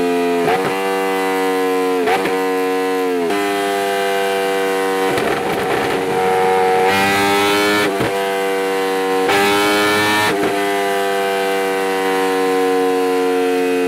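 2015 Yamaha R1 crossplane inline-four revved repeatedly by twists of the throttle, the pitch jumping up and dropping back several times, with two sharper, brighter rev surges near the middle before it settles into a steadier drone.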